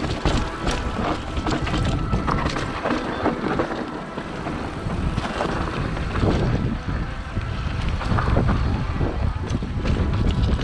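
Wind buffeting the camera microphone while a mountain bike descends a rocky trail, with a steady run of clatters and knocks from the tyres and bike over stones.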